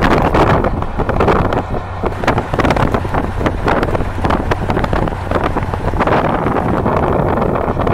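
Wind buffeting the microphone over the steady low hum of a fishing boat's engine running.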